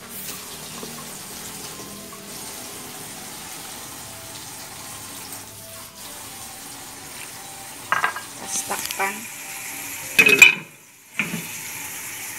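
Abalone strips and carrots sizzling steadily in a hot wok after a splash of water has been added. Late on come several knocks and one loud clatter as a glass lid is set on the wok.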